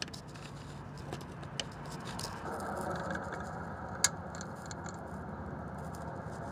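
Small metallic clicks and light scrapes of a magnetic pickup tool against the starter's mounting bolt and housing as the bolt is drawn out, with one sharp click about four seconds in, over a steady background hiss.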